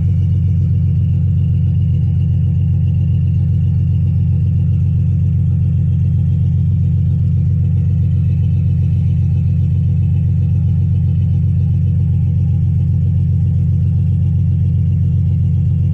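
The 2002 Oldsmobile Bravada's 4.2-litre inline-six idling steadily just after a cold start, heard from inside the cabin as a low, unbroken hum.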